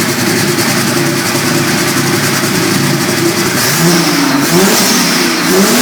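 Turbocharged V6 engine of a Jeep Willys CJ-5 running under load. Its pitch holds fairly steady at first, then it revs up and down several times in quick succession over the second half.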